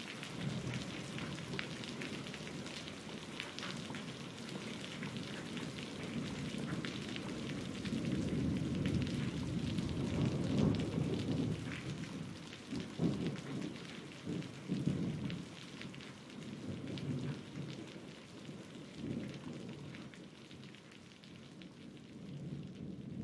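Steady rain falling, a dense patter of drops, with low rolling thunder rumbles swelling and ebbing through the middle. The rain fades out near the end.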